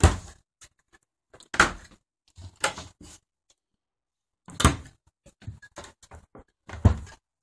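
Wooden kitchen cabinet doors being opened and shut by hand, about five separate knocks and clacks at irregular spacing.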